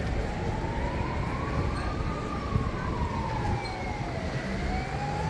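Emergency vehicle siren wailing, its pitch slowly rising and falling over a few seconds, over street traffic noise.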